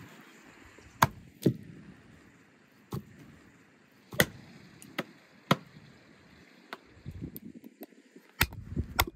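Heavy meat cleaver chopping lamb on a wooden chopping block: about nine sharp, separate chops at irregular intervals.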